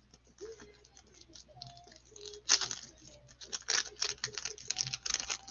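A trading card pack wrapper torn open and crinkled in gloved hands: a few small crackles, then from about two and a half seconds in a dense run of loud tearing and crinkling.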